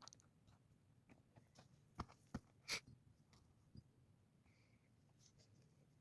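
Near silence broken by a few faint clicks and short knocks, three of them a little louder about two to three seconds in.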